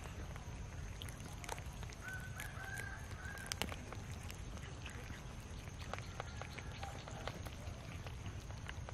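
A group of cats eating cooked rice from a metal tray: many small, quick clicks of chewing and lip-smacking, over a steady low rumble. A brief faint high call sounds about two to three seconds in.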